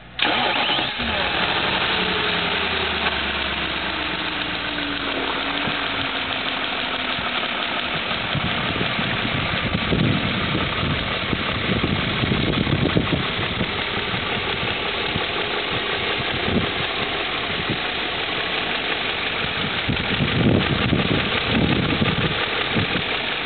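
2002 BMW M5's V8 engine starting and settling into idle, the fast idle falling in pitch over the first several seconds. A ticking noise from the engine is the fault being shown.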